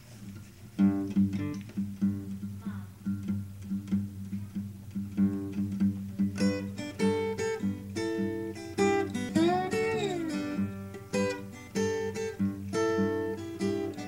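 Epiphone acoustic guitar picked with a regular bass note, joined about six seconds in by a Hohner harmonica playing long held notes with bends, as an instrumental intro.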